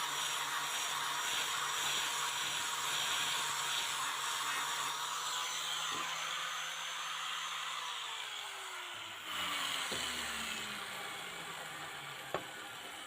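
An electric power tool's motor running steadily, then switched off about eight seconds in and spinning down, its pitch falling. A sharp click comes near the end.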